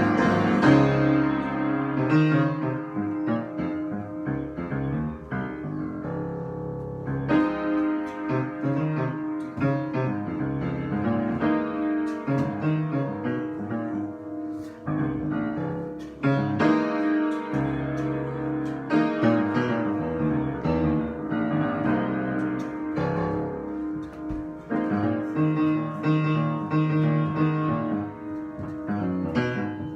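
Piano or keyboard playing an improvised piece: chords and melody notes struck continuously over a held mid-range note.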